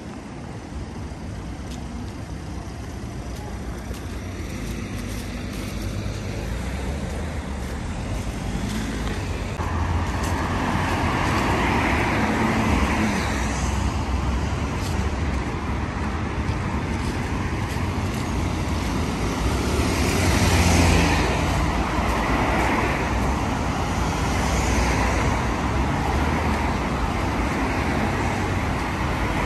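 City street traffic: cars and other road vehicles passing in a steady wash of tyre and engine noise, building up over the first ten seconds, with the loudest pass about twenty seconds in.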